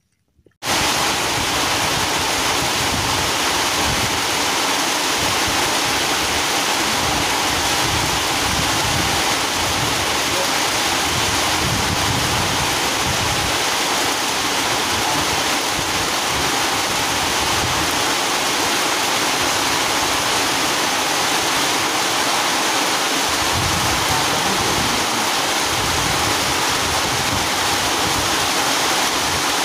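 Heavy rain pouring down in a storm, a loud steady hiss that starts abruptly just after the start, with wind buffeting the microphone underneath it.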